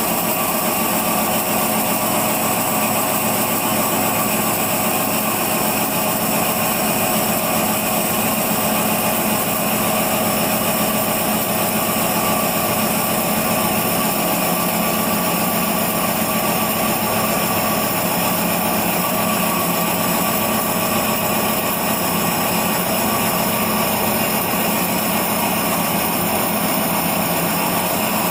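CNC machine cutting grooves into a creper/shredder roller, its electric-motor-driven cutting head running steadily: an unchanging machine sound with several constant tones over a hiss.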